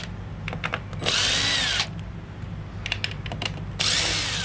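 Power drill driving a bit, run in two short bursts to back screws out of a door hinge, its motor whine rising and falling in pitch each time. Sharp clicks come between the bursts as the bit seats on the screw heads.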